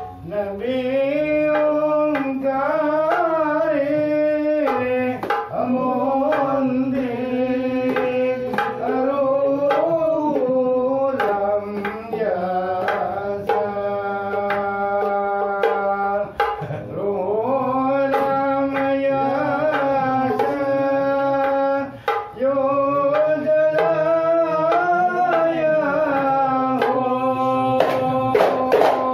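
Hadrah Ishari sholawat: voices singing a long, ornamented devotional melody over hand-struck frame drums (terbang) beating a steady rhythm.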